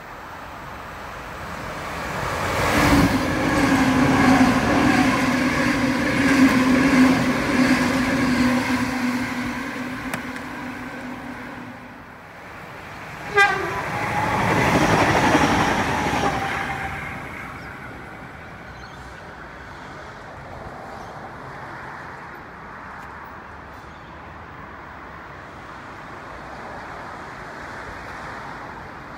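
A passenger train's horn held in one steady note for about nine seconds as the train approaches. About a second after the horn stops there is a sharp crack with a quick falling squeal, the loudest moment. The train then runs past and its noise settles into a steady low rumble.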